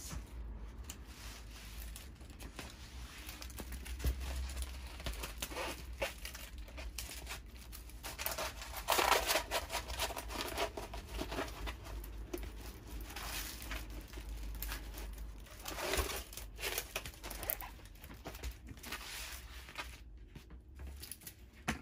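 Diamond painting canvas with its clear plastic protective film crinkling and rustling as it is unrolled and flattened by hand, in irregular bursts, loudest about nine seconds in.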